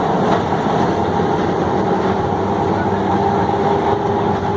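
Electric tram running on its rails: a steady, loud rumble of wheels and running gear with a constant hum over it.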